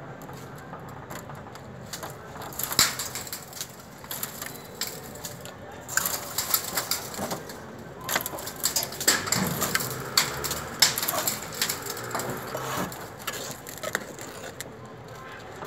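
Steel trowel scraping wet cement mortar off a hand board and flinging it against a brick wall: a run of short scrapes and wet slaps, busiest in the middle. This is a chapisco being thrown, the rough spatter coat that goes on before the render.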